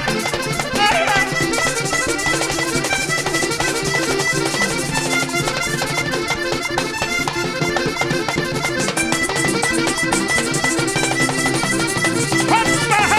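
Live vallenato music in an instrumental passage between sung verses: the accordion carries the melody over bass and a fast, even percussion rhythm.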